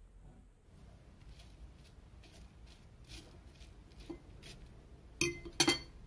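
Dishes clinking: faint scattered ticks, then two sharp, ringing clinks of glass or ceramic knocking together near the end.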